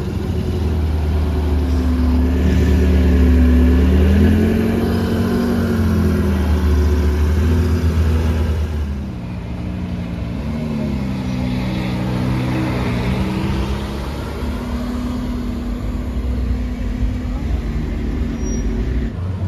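Porsche 918 Spyder's V8 running at low speed with a heavy deep rumble, its pitch rising and falling as it creeps along. About halfway through, the sound changes to a Lamborghini Aventador SVJ's V12 rising and falling in pitch as it pulls away and drives off.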